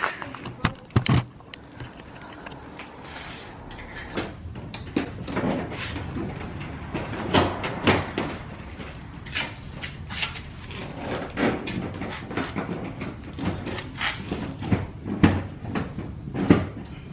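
Irregular knocks, clicks and plastic rattles of a Scion tC's front bumper cover being handled and pushed onto its quick-release latch pin.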